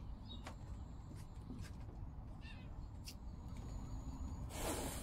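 Low outdoor rumble with a few faint bird chirps and light clicks. About four and a half seconds in, a steady hiss starts: the mini cannon's fuse is lit and sizzles.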